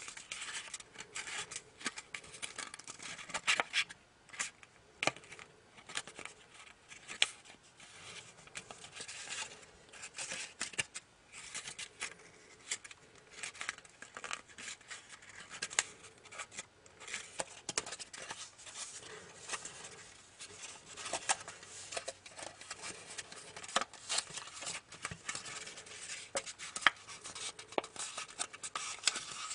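Origami paper rustling and crinkling as fingers fold and crease it, with irregular sharp crackles throughout.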